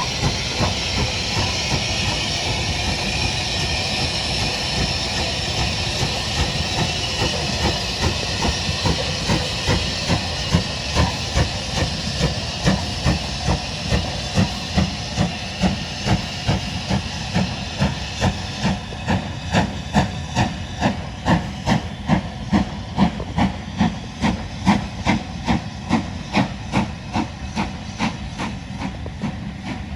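BR Standard Class 5MT steam locomotive hissing steam. A regular beat from the moving train builds through the middle, at about one and a half beats a second, and takes over as the hiss fades.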